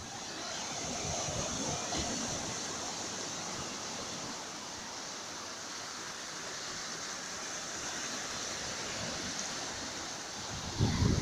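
Sea surf washing steadily, a continuous hiss of breaking waves that swells about a second in. Wind begins buffeting the microphone near the end.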